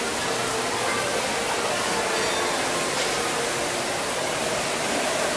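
Steady rushing of water from a stream and waterfall running through a lodge's indoor lobby, with faint background voices.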